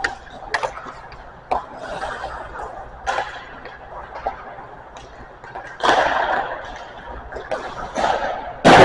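Hockey pucks being shot and striking the boards, sticks or goalie pads in an ice rink: about seven sharp cracks at uneven intervals, the loudest near the end, each ringing out in the rink's echo.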